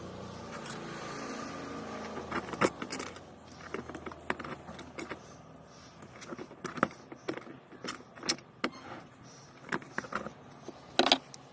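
Metal parts clinking and knocking irregularly during washing-machine repair work, after a steady mechanical hum that stops about two and a half seconds in.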